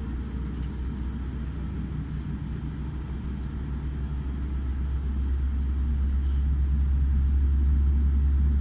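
Low rumble inside the cabin of a Boeing 787-10 airliner, growing steadily louder from about halfway through.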